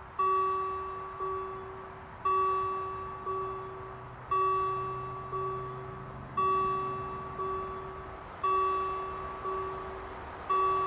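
Swiss railway level-crossing warning bell ringing in a steady repeating pattern: a loud strike about every two seconds, each followed by a softer strike about a second later, each ringing and fading.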